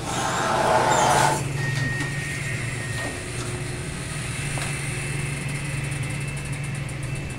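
Steady low machinery hum in a dry-cleaning shop, with a loud rushing hiss over the first second and a half.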